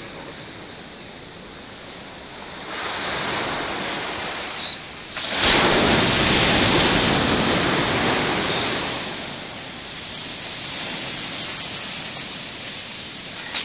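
Sea surf breaking and washing up the shore, a steady rush that builds about three seconds in, swells loudest from about five and a half seconds for a few seconds, then eases off. A short sharp knock comes right at the end.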